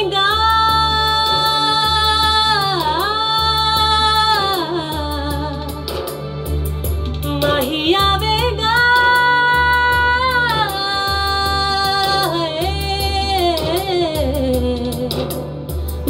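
Woman singing a Sufi song in long held notes with sliding, ornamented turns between them, over electronic keyboard accompaniment with a steady low bass.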